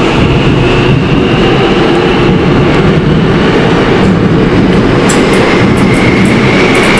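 Seoul Subway Line 7 electric train running past at speed: a loud, steady rumble of wheels on rail with a motor whine over it. There are a few sharp clicks about five seconds in, and a new whine rising slowly near the end.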